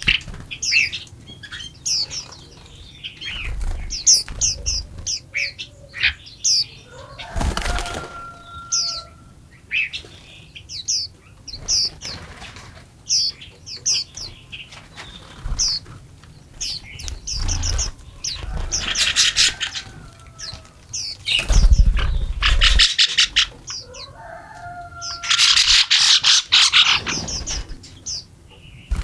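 Small songbirds chirping over and over in short high notes, with bursts of rapid wing fluttering about two-thirds of the way in and near the end, and a few low thumps.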